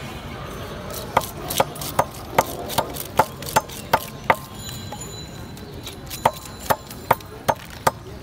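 Fish being scaled by hand: sharp, regular knocks about two to three a second, in two runs with a pause of about two seconds between them, over a low market murmur.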